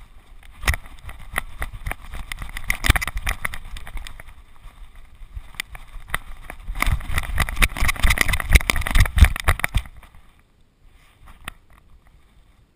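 Knocking and rubbing of a GoPro camera in its housing strapped to a running dog's back, in two spells of rapid, irregular bumps that die away about ten seconds in.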